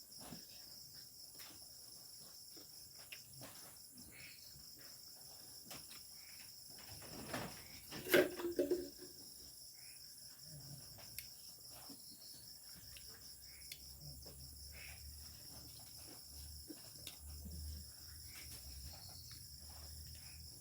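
Crickets chirping steadily. Over them come scattered small clicks and, about eight seconds in, a louder burst of noise from someone eating.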